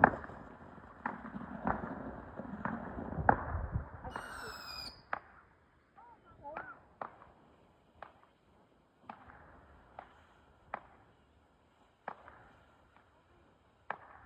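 Fireworks going off: sharp bangs and crackles come close together over a rumbling haze for the first four seconds, then thin out to scattered fainter pops. A brief high whistle sounds about four seconds in.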